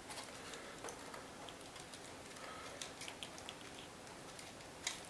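Faint, irregular clicks and light ticks of small parts being handled: wires and plastic pieces on a quadcopter's shell being worked by hand. A sharper click comes near the end.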